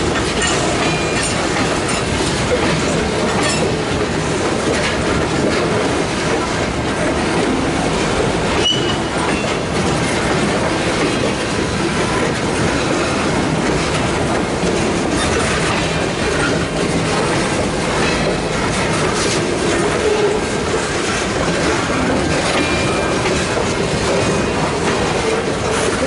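Freight train's covered hopper cars rolling past at close range: a steady rumble of steel wheels on rail with clicking over the rail joints, and a few brief, faint high wheel squeals.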